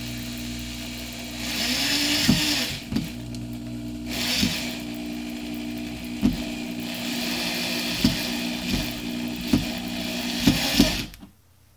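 Corded electric drill running at the towel-bar mounting plate. Its whine shifts in pitch with the trigger and grows louder and noisier in two stretches as it works into the wall, with sharp clicks along the way. It stops suddenly about eleven seconds in.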